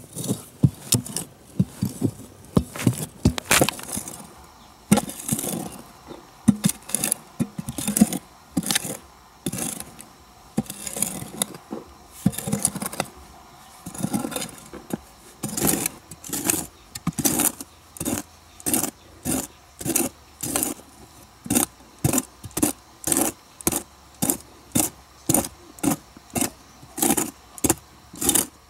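Rhythmic scraping strokes of a hand tool. They are uneven at first, then settle about halfway in to a steady pace of about two strokes a second.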